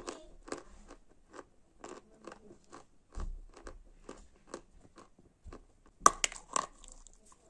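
Close-up crunching of a person chewing a mouthful of Kursk chalk. The crisp crunches come about twice a second as the chalk breaks into small crunchy pieces, and there is a louder cluster of crunches about six seconds in.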